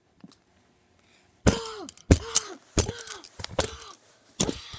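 A rapid series of hard strikes starting about a second and a half in, each followed by a short downward-sliding tone: a toy hammer smashing down on Beyblade spinning tops.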